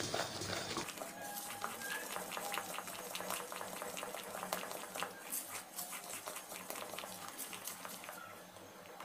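A flat spatula stirring and scraping thick, bubbling gram-flour and sugar-syrup batter in a steel pan, as a stream of quick, uneven scrapes and clicks.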